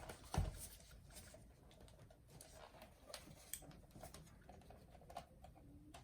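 Faint clicks and taps of a mini boombox's plastic case being handled as its front cabinet is worked off its clips, with one sharper click about half a second in.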